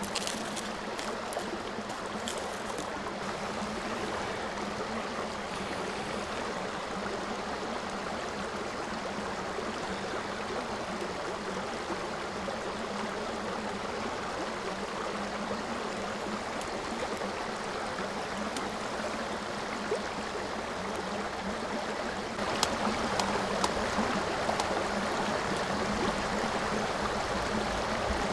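Steady rushing noise of running water throughout, with light clicks of sticks being laid on a fire grate in the first few seconds. About 22 seconds in the rushing gets louder and scattered sharp crackles join it as the kindling starts to smoke.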